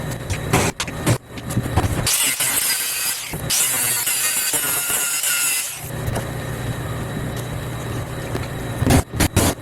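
Knocks and clatter from tearing apart an old boat bench, over a steady low hum. About two seconds in, a harsh high-pitched hiss takes over for around four seconds and then stops.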